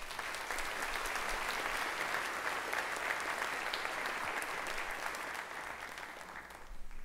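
Congregation applauding, a steady patter of many hands clapping that tapers off and stops near the end.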